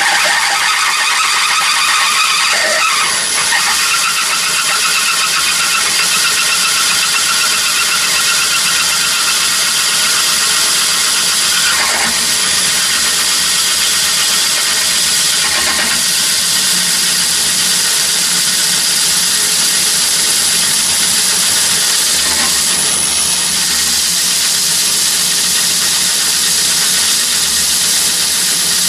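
Myford lathe running with a large flat-bottom drill, held in the tailstock, cutting into a workpiece turning in the chuck. The cut makes a steady high-pitched whine over the machine's running noise.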